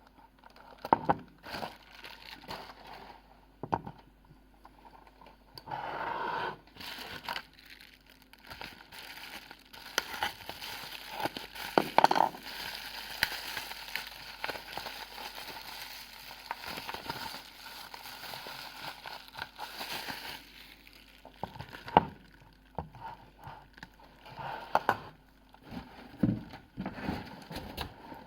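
Packaging being handled: crinkling of wrapping material with scattered sharp clicks and rustles, busiest in the middle stretch.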